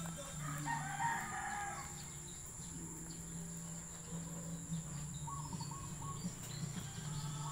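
A rooster crowing once, starting about half a second in and lasting about a second and a half, with short bird calls a few seconds later.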